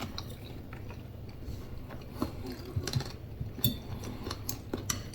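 A man chewing a mouthful of baked potato with cheese, with scattered small clicks and soft mouth noises over a low room hum.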